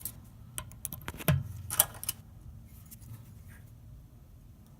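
Scattered clicks and light metallic clinks of small parts and hand tools being handled while the broken tabs of an old washing-machine part are worked out, with the sharpest knocks a little over a second in and just before two seconds.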